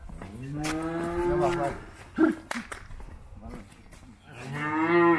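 Calves mooing: two long, drawn-out bawls, the first soon after the start and the second near the end, each rising and then falling in pitch. A single sharp knock comes between them.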